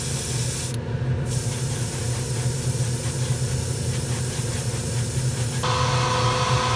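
Airbrush spraying thinned black enamel paint: a steady hiss that cuts out briefly about a second in and shifts near the end, over a steady low hum.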